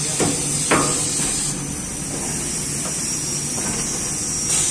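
Muller Martini Amigo Plus perfect binder running: a steady machine hum with a high hiss, broken by two sharp clacks of its mechanism in the first second.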